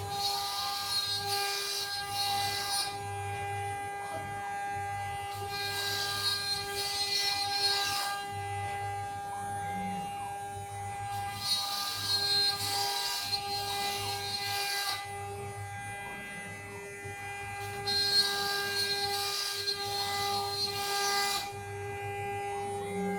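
CNC router spindle running with a steady whine, while the bit cuts a decorative partition panel. The cutting noise comes in four bursts of about three seconds each, five to six seconds apart.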